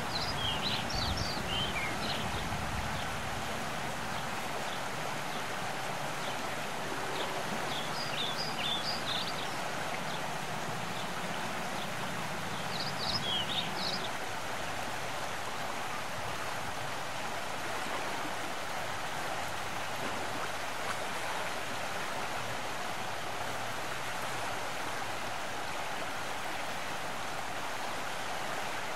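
Outdoor ambience: a steady rushing hiss, with three short bursts of high bird chirps, near the start, around eight seconds in and around thirteen seconds in.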